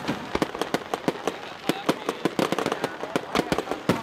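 Aerial fireworks going off in a rapid, irregular string of sharp bangs and cracks, several a second without a break.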